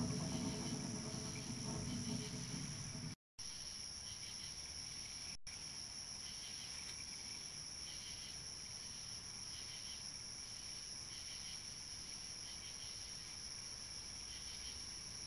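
Night insects: a steady high trill of crickets with softer chirps repeating about once a second. For the first three seconds a louder low rustling sits under it, ending at a brief dropout.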